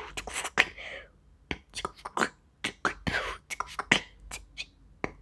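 Vocal beatboxing by a boy with one hand cupped over his mouth: sharp mouth-made clicks and drum-like hits in a quick, uneven rhythm, with a brief pause about a second in.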